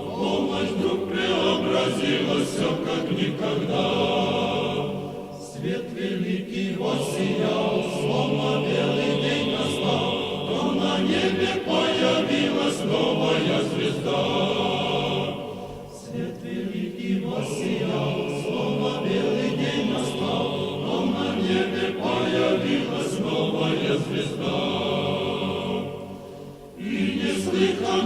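Choir singing Orthodox church chant in sustained phrases, with short breaths between phrases about every ten seconds.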